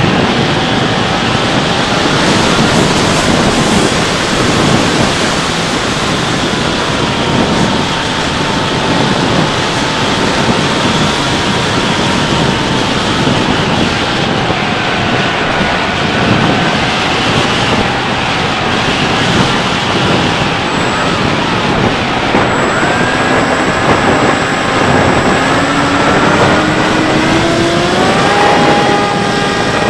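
Wind rushing over a Bixler 3 RC plane's onboard camera in flight, with the whine of its electric pusher motor wavering in pitch. Near the end the motor's pitch climbs and then holds steady.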